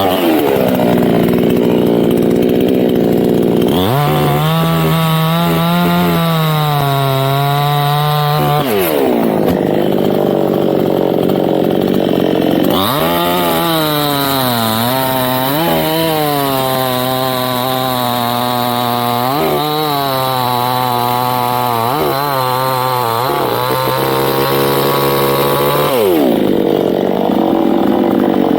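Two-stroke chainsaw cutting teak wood. The engine runs at high revs, and its pitch drops and wavers each time the chain is loaded in the cut, then picks up again between cuts.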